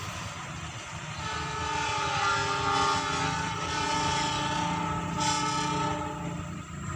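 Train horn sounding one long blast: a chord of several steady tones begins about a second in and holds for about five seconds before fading, over a continuous low rumble.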